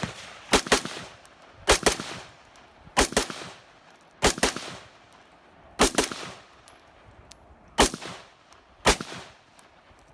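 Gunshots, about a dozen in ten seconds, fired at an uneven pace with several coming in quick pairs, each crack followed by a short echo.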